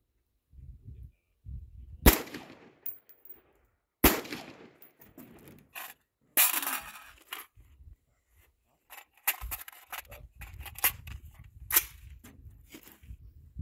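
AR-15 rifle firing single shots about two seconds apart, a pause while the magazine is changed, then several quicker shots near the end, with clangs of hits on steel targets.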